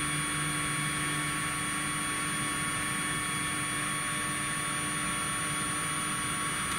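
Stepper motors of a 3018 desktop CNC router jogging the spindle carriage along the gantry at about 1,000 mm/min: a steady whine of several pitched tones.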